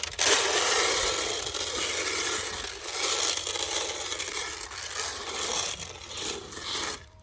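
Dry chicken layer feed being scooped with a small plastic potting cup and poured into a tray: a continuous gritty rush and scrape of feed that swells and fades and stops suddenly near the end.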